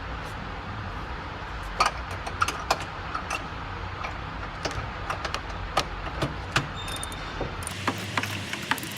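Scattered sharp metal clicks and clinks, a few a second and uneven, from a socket wrench and bolts being worked while fitting a caster to a refrigerator's underside, over a steady low hum.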